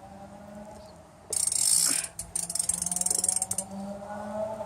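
BMX bike's rear hub clicking rapidly as the bike coasts, with a loud burst of rushing noise about a second in.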